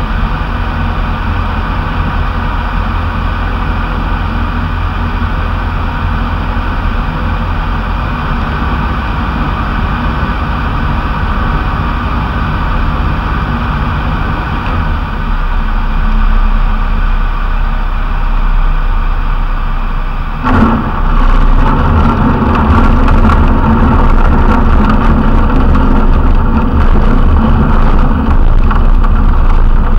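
Cockpit noise of a single-engine light aircraft gliding in to land, its engine throttled back under a steady rush of wind. About 20 seconds in the noise jumps suddenly louder, with rumbling and rattling as the wheels touch down and roll on a grass strip.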